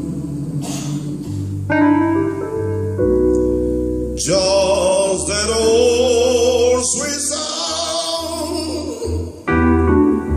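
Live soul singing over a stage keyboard: held chords with a deep bass, and a strong voice with a wavering vibrato coming in about four seconds in.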